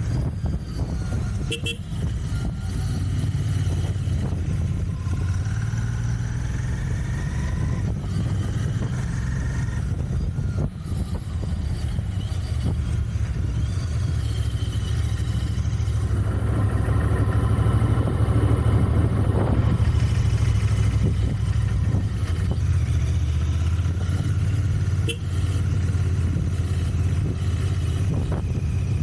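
Royal Enfield Continental GT 650's 648 cc parallel-twin engine running on stock exhaust while riding, a steady low drone that swells louder for a few seconds past the middle.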